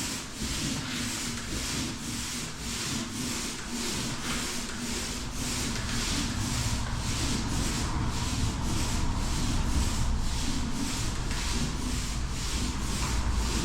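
Paint roller rolling a mist coat of paint up and down a wall in quick back-and-forth strokes, a rhythmic rubbing swish at about two strokes a second.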